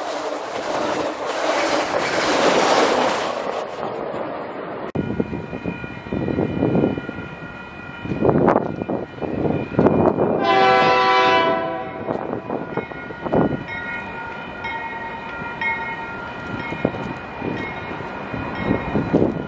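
Freight train running past with rumble and wheel clatter. About ten seconds in, a diesel locomotive's air horn sounds one blast of about a second and a half, several notes together.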